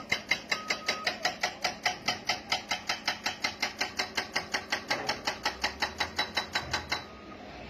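Steel crawler tracks of a Doosan DX140LC excavator clacking in a rapid, even rhythm, about six clicks a second, that stops abruptly near the end.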